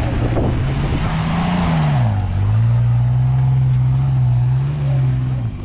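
Toyota FJ Cruiser's V6 engine under heavy throttle, driving the SUV up soft sand with its wheels spinning. The engine note climbs, drops back about two seconds in, then holds steady under load.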